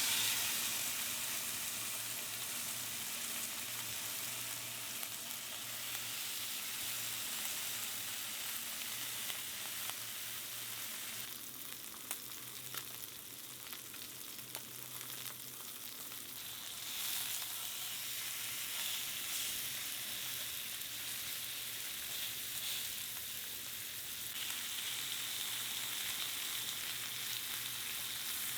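Steak sizzling and crackling in a hot frying pan, with a faint steady low hum underneath.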